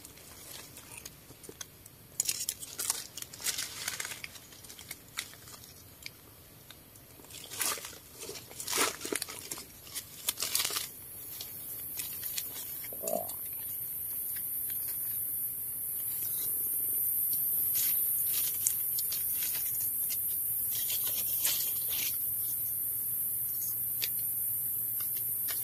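Crunching and rustling of forest leaf litter and undergrowth during wild mushroom picking, in scattered crackles. About eleven seconds in, a steady high-pitched insect buzz starts abruptly, swells over the next few seconds and becomes the loudest sound.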